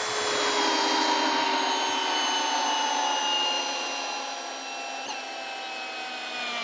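Hilti SF 6H-A22 cordless drill's motor whining steadily as it drives an 8-inch lag screw into a wooden log through a socket, its pitch sinking slowly as the screw goes deeper.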